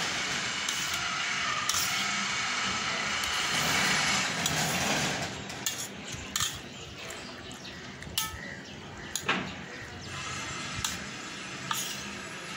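Metal spoon scraping and clinking against a steel plate while scooping rice, with several sharp clinks in the second half. A steady rushing noise fills the first few seconds.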